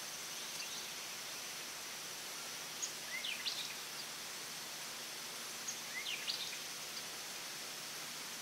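Steady high drone of insects over a hiss of open-field ambience, broken twice, about three and six seconds in, by a short burst of quick rising bird chirps.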